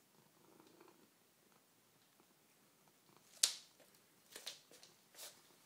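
A cat eating fish food pellets from a small plastic tub on a wooden floor: a few sharp clicks and crunches in the second half, the loudest about three and a half seconds in.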